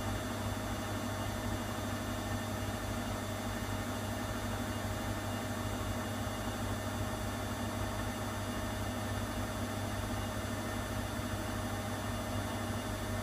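Schulthess Spirit 6155 front-loading washing machine running an empty spin: a steady motor hum with a thin, constant whine over an even rush of noise.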